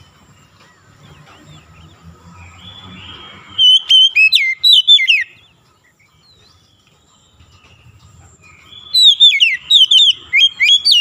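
Oriental magpie-robin singing in two loud bursts of rapid, swooping whistled notes: one about four seconds in and another near the end, with faint chirps between.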